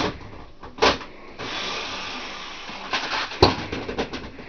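Knocks and clicks of a plastic blender jar being handled and fitted onto its base, with one sharp click about three and a half seconds in. A steady hiss runs for about a second and a half in the middle.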